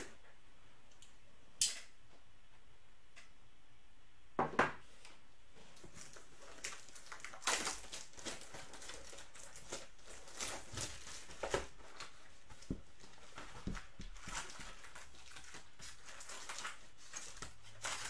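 Shrink-wrap being torn and peeled off a sealed trading-card hobby box, the plastic crinkling, then foil card packs rustling as they are pulled out of the box. A few sharp clicks or taps come in the first five seconds.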